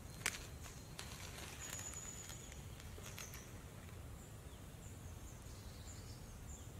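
A kitchen knife finishes cutting through a baked calzone and taps once against the wooden cutting board, followed by a few soft crackles of the crust as the halves are pulled apart. Quiet outdoor ambience throughout, with a faint high bird call about two seconds in.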